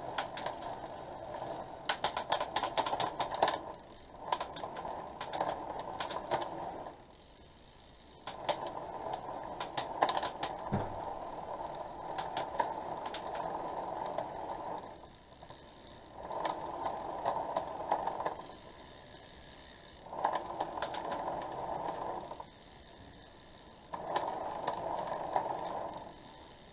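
A 1x road bike drivetrain turned by hand on a stand: the chain whirs over the cassette in runs of a few seconds with short pauses between them. Clusters of sharp clicks come early on and again about ten to thirteen seconds in, while the rear shifting is being checked after a cable tension adjustment.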